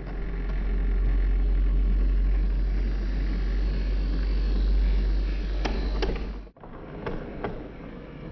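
OO gauge Heljan Class 128 parcels unit model running close past on the track: a loud low rumble from its motor and wheels, with two sharp clicks just before the sound cuts off about six and a half seconds in. After that comes a quieter running rumble with two more clicks.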